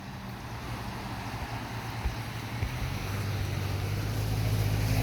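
A car approaching along the street, its low engine hum and tyre noise growing steadily louder toward the end.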